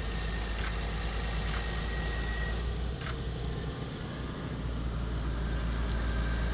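Diesel engine of a large farm tractor running steadily as it drives closer, a low rumble that grows slightly louder. A few sharp clicks in the first half.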